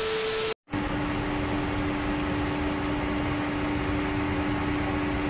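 A short burst of TV-static noise with a steady tone, cut off sharply, then a steady hiss with a low hum under it from dense white vapour venting out of an electric car at a charging post.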